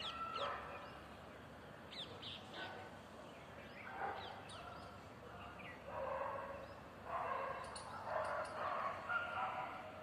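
Outdoor birdsong: small birds chirping in short, high, falling notes, scattered through the first half. From about six seconds in, patches of a muffled, rougher sound join in.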